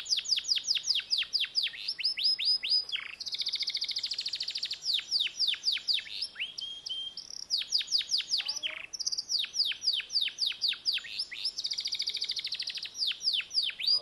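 Domestic canary singing a long, unbroken song: quick runs of falling notes, about five a second, broken twice by fast buzzy trills and once by a short held whistle.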